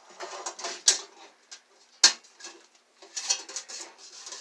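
Kapton tape being handled and pressed into place inside an open computer power supply: crinkly rustling and small clicks, with two sharp clicks about one and two seconds in.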